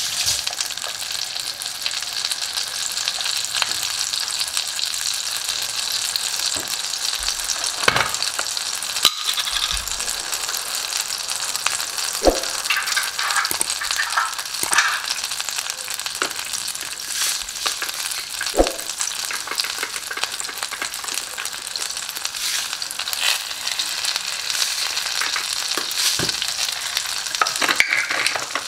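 Butter melting and sizzling in a nonstick frying pan, a steady frying hiss with a few sharp ticks now and then.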